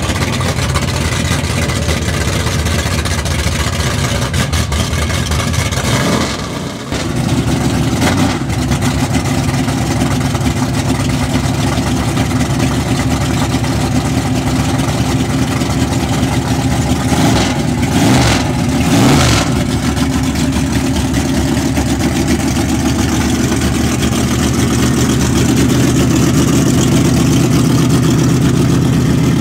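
1964 Ford Galaxie's FE big-block V8 running at idle, revved briefly a few times: once about six to eight seconds in and again in a cluster of blips around seventeen to nineteen seconds in, settling back to a steady idle each time.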